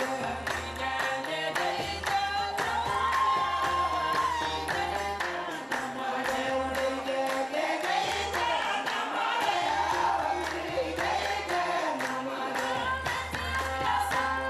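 A group of voices singing together in a traditional chant, with a steady run of percussion strokes beneath it.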